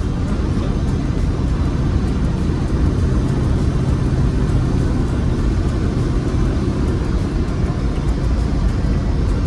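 Rover SD1 Vitesse's 3.5-litre V8 engine running steadily while the car drives along, with road and tyre rumble.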